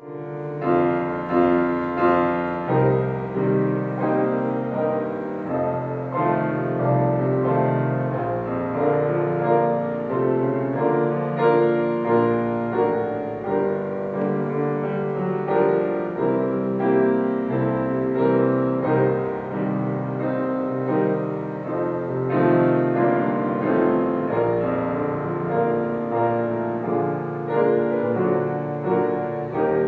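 Instrumental music with no singing, starting suddenly and playing on steadily.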